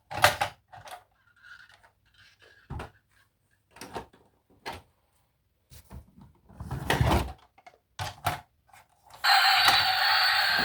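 Plastic toys being handled: scattered clicks and knocks, with a heavier thump about seven seconds in. Near the end a loud electronic toy sound starts up and keeps going.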